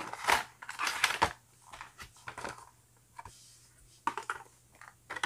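Cardboard retail box and clear plastic packaging being handled as the contents are slid out: irregular crinkles, rustles and scrapes. They are loudest in the first second and a half, with further bursts about halfway through and near the end.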